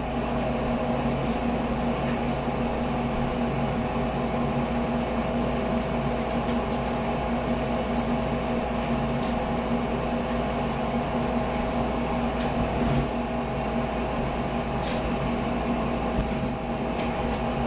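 Steady motor hum of a running room appliance with a few faint clicks and knocks.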